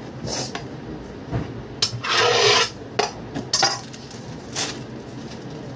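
Handling noise from hands at work: a few short, scattered knocks and clicks, and a longer noise lasting over half a second about two seconds in, over a steady low hum.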